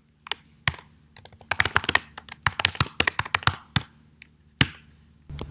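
Typing on a computer keyboard: a quick run of key clicks, then a pause and one louder single key press over a second later.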